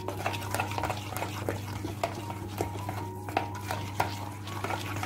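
Metal spoon beating thick gram-flour batter in a plastic bowl: quick wet stirring strokes with the spoon clicking against the bowl a few times a second, as the batter is whipped smooth.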